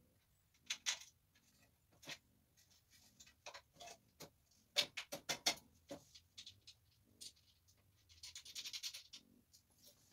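Hand tools and bolts clinking and knocking on metal while a small engine is bolted onto a mini bike frame, with a quick run of clicks about five seconds in and a short rasping scrape near the end.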